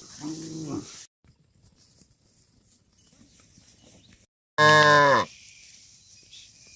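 A cow moos once about four and a half seconds in: a short, loud call whose pitch drops at the end.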